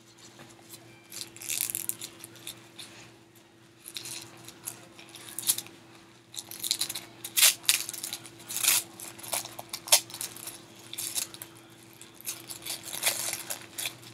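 Plastic blind-bag wrapper crinkling as it is handled and pulled open by hand, with sharp, irregular clicks of small plastic toy pieces. A faint steady hum runs underneath.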